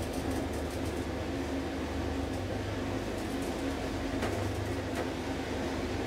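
Kone traction elevator car running between floors: a steady low rumble and hum, with a couple of faint clicks near the end.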